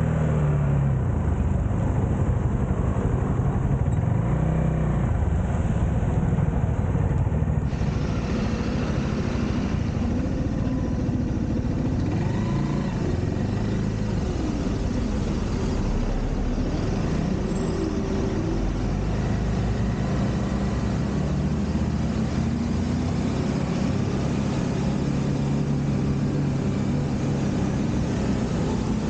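Motorcycle engine running while riding in city traffic, its pitch rising and falling with the throttle, over a steady hiss of road and wind noise picked up by a handlebar-mounted camera.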